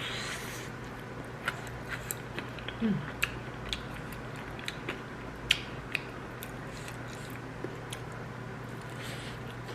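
A person chewing and biting into a fried seaweed roll (gimmari), with scattered short sharp clicks and taps, over a steady low hum.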